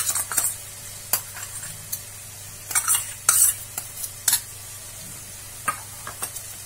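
Chopped onion, capsicum and garlic sizzling in hot oil in a kadhai, with a run of short scrapes and knocks of utensils against the pan as red chilli sauce is added.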